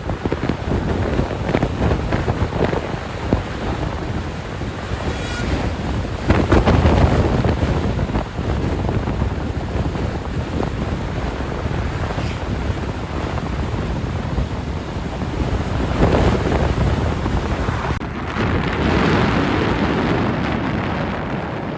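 Wind buffeting the microphone of a camera on a moving motorcycle: a dense rushing noise that swells in stronger gusts about a third of the way in and again past the middle.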